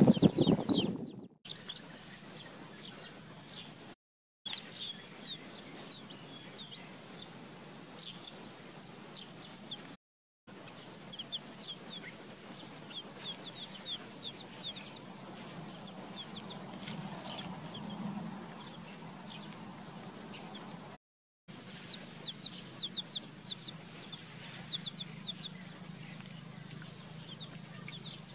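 Baby chicks peeping, short high chirps scattered through, thickest in the last few seconds. A louder, low-pitched sound fills the first second, and the sound cuts out completely for a moment a few times.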